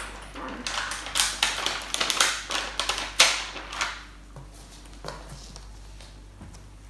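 Crinkling and crackling of a plastic sticker sheet being handled and a sticker peeled off it, a quick run of crackles over the first three seconds or so, then only a few faint taps.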